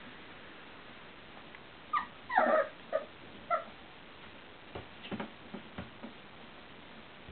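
Four-week-old Welsh Springer Spaniel puppies whimpering and yipping: a quick run of short, high whines about two seconds in, one of them drawn out a little longer. A few faint knocks follow.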